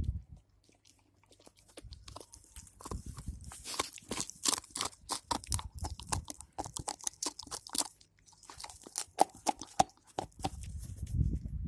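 German Shepherd puppy gnawing a hard calcium chew bone: irregular crunches and clicks of teeth on the bone, pausing briefly a couple of times.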